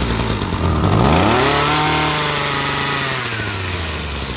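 Two-stroke brush cutter engine running just after starting, its pitch rising about a second in, holding, then easing back down near the end.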